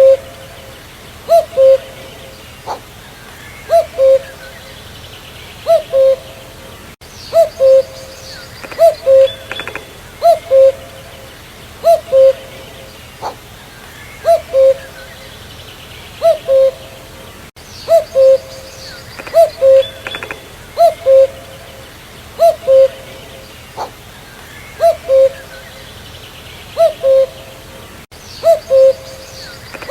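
Common cuckoo (Cuculus canorus) calling its two-note "cu-coo", a higher note dropping to a lower one, repeated about every one and a half seconds. Faint chirping of other birds sits behind it.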